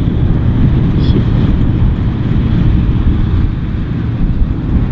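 Massey Ferguson combine harvesters working in the field, their engines and threshing giving a steady, loud, low rumble.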